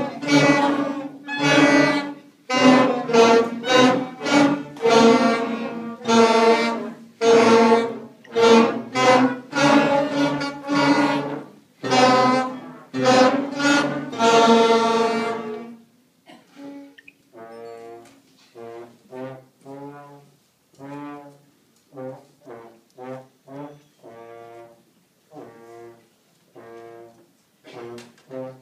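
Beginning school band brass with solo trombone, playing a tune in separate notes. The notes are loud for roughly the first half, then turn quieter and shorter.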